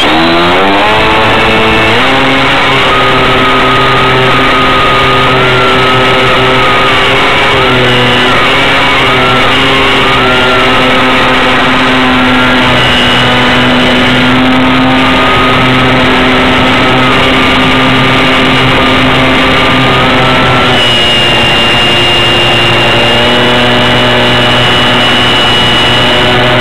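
RC plane's motor and propeller, heard from a camera on board: the motor spins up with a rising whine over the first two seconds, then runs steadily through the flight, its pitch wavering a little. About twenty seconds in the note shifts and a higher tone joins it.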